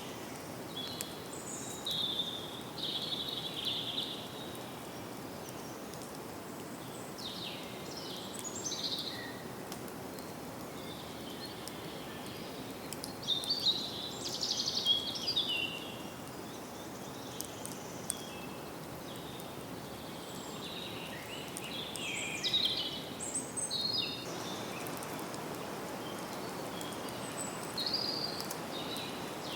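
Forest ambience: small birds calling and singing in short bursts of high chirps and trills, over a steady soft background hiss.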